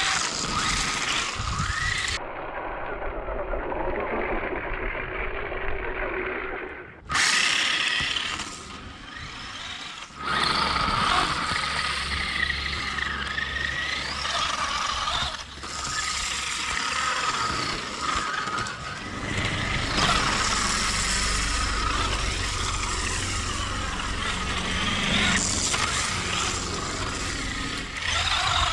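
Small 1/18-scale RC car's brushed electric motor whining, its pitch rising and falling with the throttle, with tyres sliding as the car drifts. The sound changes abruptly a few times, about two, seven and ten seconds in.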